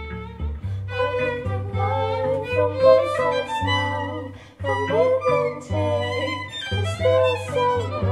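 A violin plays a wavering melodic line over sustained low cello notes: an instrumental string passage with no singing.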